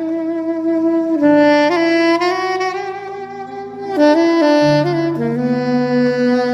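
Soprano saxophone playing a slow smooth-jazz ballad melody in long held notes that step from pitch to pitch, over a lower sustained accompaniment.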